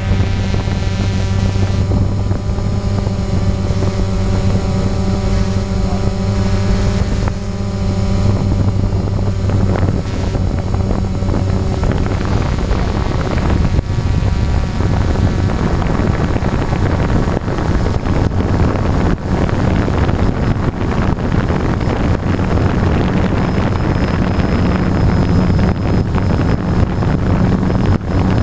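DJI Phantom quadcopter's motors and propellers buzzing steadily in flight, heard from the camera carried on the drone, with wind rushing over the microphone. The even motor hum turns rougher and noisier after about twelve seconds.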